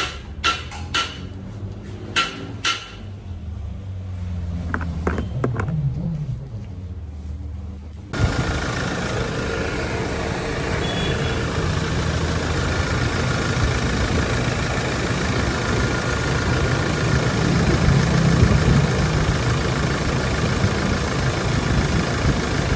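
A few sharp plastic clicks and knocks as the dashboard and blower-housing panels are fitted back. From about eight seconds in, the Toyota Innova's engine runs steadily with the air conditioning switched on for a pressure check on its cleaned condenser, the high side reading about 150 to 180 psi.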